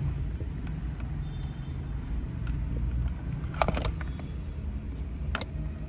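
Handling clicks and knocks as the antenna cable plug is pushed into the back of a 2-DIN car stereo head unit: a single click about halfway through, a quick cluster of clicks a little later and one more near the end, over a steady low background rumble.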